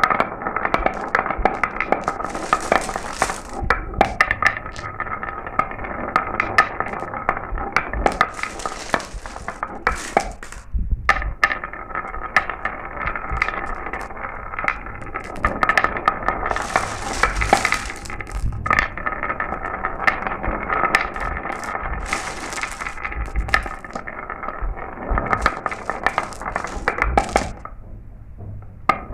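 Glass marbles rolling and clattering down a marble run: a steady rolling hum with a constant stream of sharp clicks as they knock against each other and the track. Short hissy rattles come every few seconds, and the sound thins out briefly near the end.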